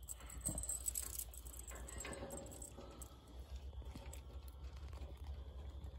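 Steel calving chain clinking and rattling lightly as it is held and worked on a calf's leg during a pull, scattered small clicks over a steady low rumble.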